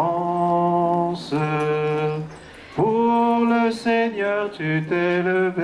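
A slow sung melody in long, steady held notes, with a short break about two and a half seconds in.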